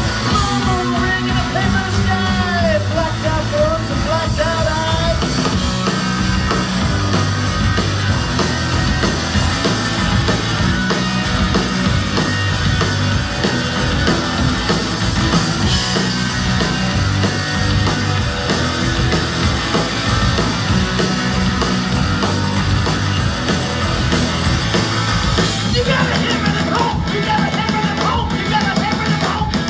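Live punk rock band playing loud: electric guitar, electric bass and drum kit. A man sings and shouts into a microphone in the first few seconds and again near the end, with the band playing on without vocals in between.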